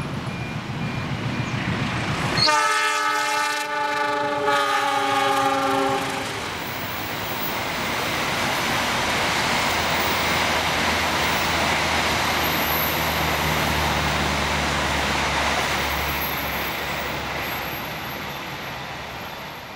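Diesel-hauled express passenger train passing at speed. A multi-tone locomotive horn sounds for about three and a half seconds, its pitch dipping slightly, then comes a long steady rush of wheels and coaches on the rails that fades near the end.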